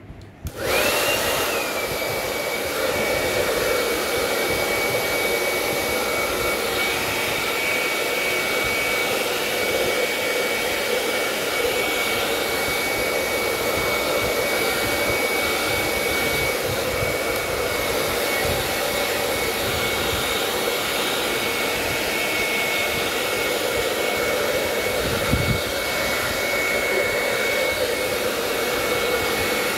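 Handheld electric hair dryer running steadily: a rushing blow of air with a thin, high whine. The whine settles slightly lower in pitch in the first second or two after it switches on.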